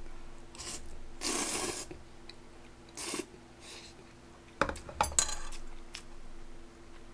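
Metal chopsticks clicking and scraping against a pot of cold spicy noodles, a cluster of sharp clinks about two thirds of the way through, with noodles slurped and chewed in short noisy bursts before it.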